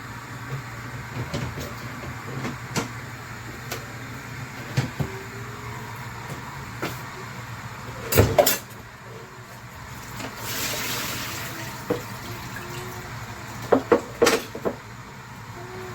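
Electric kettle heating water: scattered ticks and small pops over a steady low hum, a brief hiss about ten seconds in, and a few louder knocks about halfway through and again near the end.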